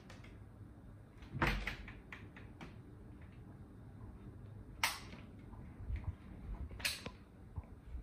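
52-inch SMC Hampton Bay Landmark ceiling fan running with a low rumble, broken by irregular sharp knocks and clatter, three of them loud, as the badly out-of-balance fan wobbles. The imbalance comes from a bent blade iron.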